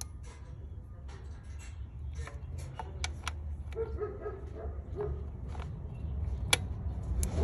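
Ratchet and 10 mm socket clicking in short, irregular strokes as small bolts on a 2010 Honda CR-V's valve cover are snugged down lightly after hand-tightening. A dog is heard faintly in the background.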